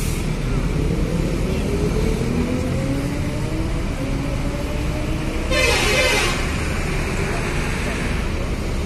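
Mercedes-Benz OH-1626 coach's diesel engine running as the bus pulls slowly away, its pitch rising as it gathers speed. About five and a half seconds in, a short loud hiss of compressed air is let out from the bus's pneumatics.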